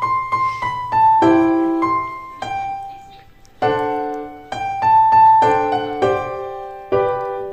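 Background piano music: a gentle melody of struck notes and chords, each fading away, with a short lull about three seconds in.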